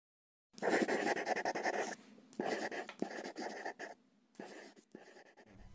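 Pencil scratching on paper in quick, rapid strokes. It starts about half a second in and comes in several bursts separated by short pauses.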